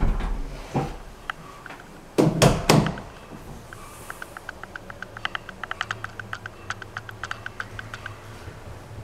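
Dull thumps and knocks from handling and moving through a small room with a handheld camera, the loudest pair about two and a half seconds in, then a run of light, quick clicks in the second half.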